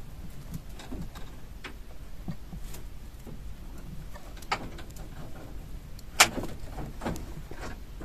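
Light rustling and scattered knocks from handling around a wooden rabbit nest box lined with hay, with one sharp knock about six seconds in.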